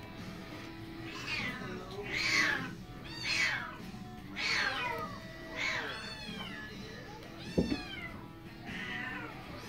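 Burmese kittens meowing over and over, about one high meow a second, each falling in pitch. There is a single thump about three-quarters of the way through.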